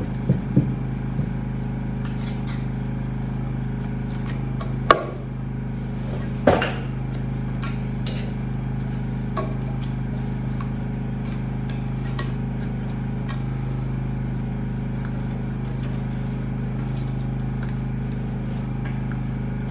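Metal tools knocking on the old Cletrac's engine parts: two sharp clanks, about five and six and a half seconds in, and a few light taps, over a steady low hum.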